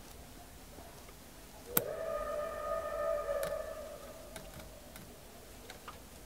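Fine stainless steel wire being coiled by hand into a spring, with faint scattered ticks of the wire. A little under two seconds in, a sharp click is followed by a ringing tone that fades over about two seconds.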